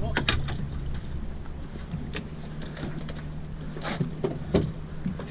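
A few sharp knocks and slaps of a freshly landed fluke flopping on a fiberglass boat deck, the loudest pair near the end, over a steady low hum.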